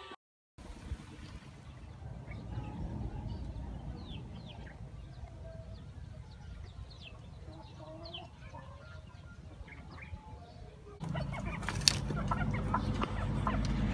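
Low outdoor hiss with faint bird chirps. About eleven seconds in it gives way to louder hens and a rooster clucking in a farmyard, with scattered sharp clicks and one loud click soon after.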